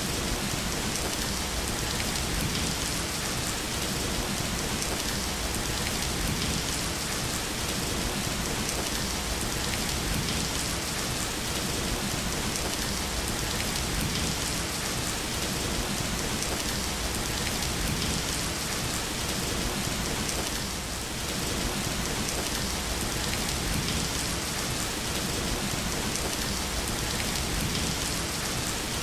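Steady rain falling, an even hiss of countless drops on a surface.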